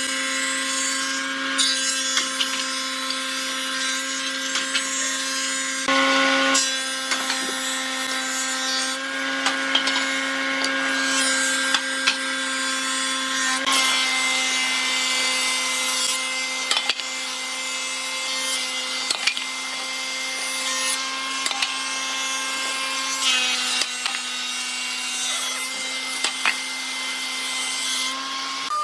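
Electric power tool cutting wood: a steady motor whine with the hiss and rasp of the blade or bit in the wood, and small knocks along the way. The motor pitch dips slightly about three-quarters of the way through as the load changes.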